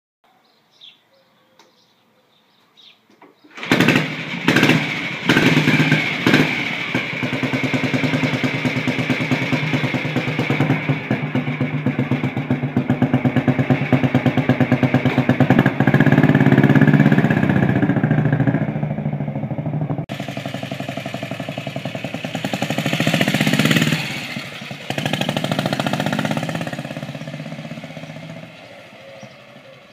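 Junak M10 motorcycle's single-cylinder four-stroke engine starting about four seconds in with a few sharp bursts of throttle, then running with an even beat and a rise in revs partway through. After a cut, the bike is ridden off and its sound swells, then fades away.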